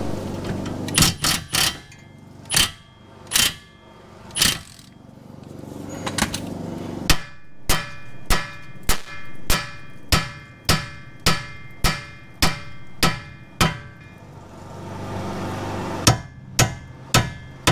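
Hammer blows on a 2004 Honda Odyssey's steering knuckle arm to jar the outer tie rod end's tapered stud loose, each blow a sharp metallic strike with a short ring. A few scattered blows come first, then a steady run of about a dozen at nearly two a second, then four more near the end.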